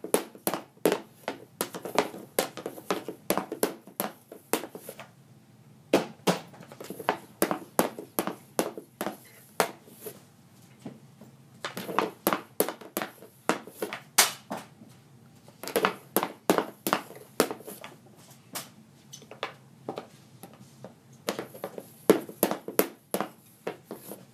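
Easton 65S hockey stick blade striking pucks on a plastic shooting pad: runs of rapid, sharp clacks and slaps as pucks are handled and shot, broken by a few pauses of a second or more.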